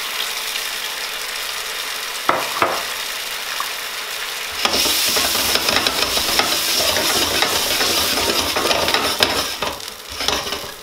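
Mushroom pan sauce sizzling in a frying pan as a little water is poured in. There are two short knocks a little over two seconds in. About halfway through, the sizzling turns louder and busier as the sauce comes back to a boil.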